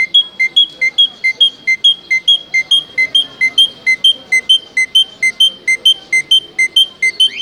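A bird calling a fast, even string of short clear notes, lower and higher notes alternating, about three a second without a break.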